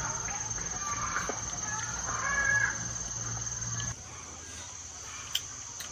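Chickens clucking in short calls for the first four seconds, then a quieter stretch with one sharp click near the end.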